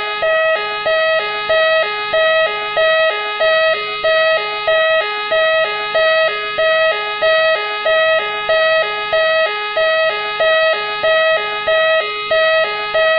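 Machine X police siren sounding in a continuous loop: two notes alternating high-low, the high note returning about every two-thirds of a second, over steady higher tones.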